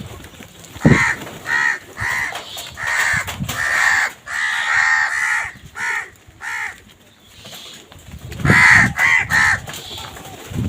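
Crows cawing: a run of about eight harsh caws, some short and some drawn out, then a brief pause and three more quick caws near the end.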